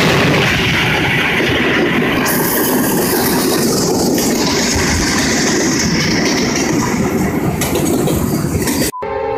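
A Norfolk Southern freight train ploughs through a trailer stuck on a level crossing. The crash and scraping debris merge into the loud rumble of the locomotive and tank cars rolling past. Near the end this cuts off abruptly and a steady tone begins.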